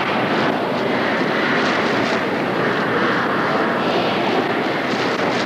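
Steady din of a stadium crowd, an even wash of noise with no single voice standing out.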